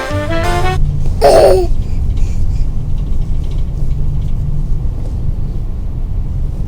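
Steady low hum and rumble of a merchant ship's engines and machinery. About a second in, a child's brief high-pitched squeal cuts across it.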